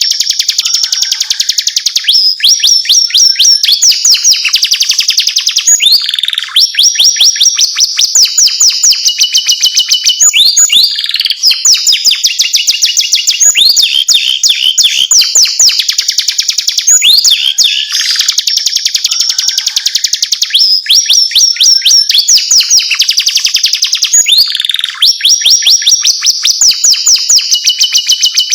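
Domestic canary singing loudly and without letup: long runs of fast trilled notes and rolling phrases, one after another with only brief gaps.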